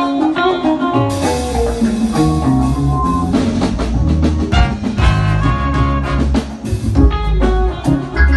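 Live band playing an instrumental Pentecostal gospel groove for a sound check: electric piano chords and runs over bass and a drum kit.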